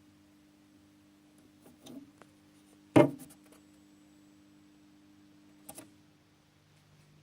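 Pioneer S-51W subwoofer buzzing with a steady low hum from its transformer and speaker cone while switched on, a level of hum the owner suspects marks a bad unit. A sharp knock comes about three seconds in, with lighter taps near two and six seconds.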